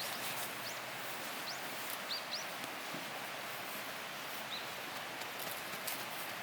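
Small bird giving short, high chirps, about six in the first four and a half seconds, over a steady hiss with a few faint clicks.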